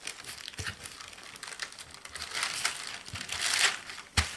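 Baking paper crinkling and rustling under hands pulling a stiff pandolce dough apart and shifting the halves, with a dull knock near the end as a piece is set down.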